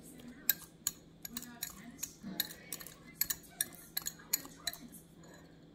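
Light, irregular clicks and clinks of a wire whisk against a measuring cup as the last of the corn syrup is scraped out into the mixing bowl.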